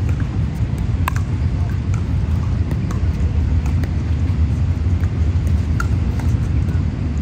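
Pickleball paddles striking the plastic ball in a rally at the net: short sharp pocks about once a second. Under them runs a steady low rumble.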